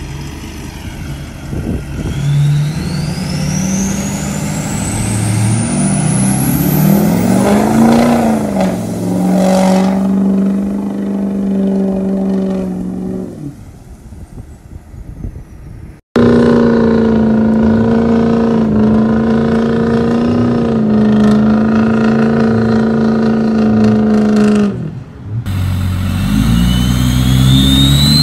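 Pickup truck engines revving hard under load, including a Ford Super Duty churning through water and mud, in short clips with abrupt cuts between them. A high whistle rises steadily in pitch a couple of seconds in, and again near the end.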